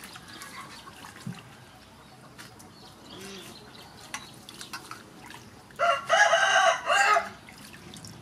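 Soft splashing and dripping of hands rinsing lettuce and vegetables in a steel bowl of water. Near six seconds in, a rooster crows once, for about a second and a half, much louder than the splashing.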